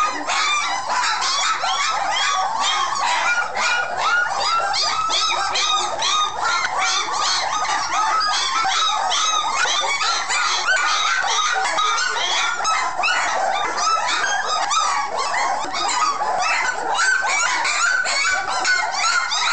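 A litter of Great Dane puppies whining and yelping together, many short high cries overlapping into a continuous chorus.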